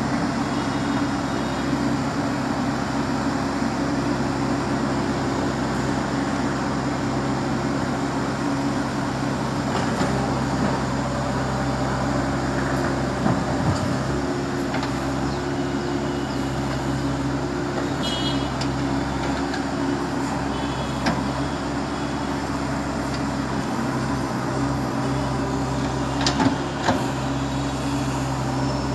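Bulldozer's diesel engine running steadily, with a few short knocks about halfway through and near the end.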